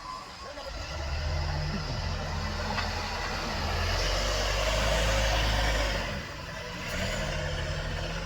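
Heavy diesel engine running and working under load. It rises in level about a second in and is loudest around four to six seconds, then eases briefly before picking up again near the end.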